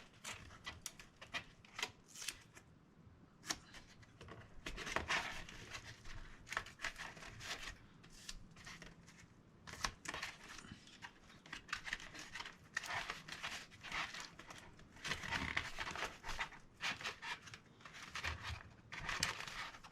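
Tape being pulled off the roll, torn into strips by hand and pressed onto cardboard: irregular ripping and crinkling with cardboard rustling between.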